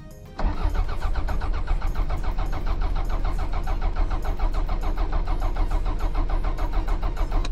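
Toyota MR2 Turbo's 3S-GTE turbocharged four-cylinder cranking on its starter motor for about seven seconds, in a fast, even pulsing rhythm, without catching, then stopping abruptly. A cranks-but-won't-start condition, traced to a blown ECU fuse.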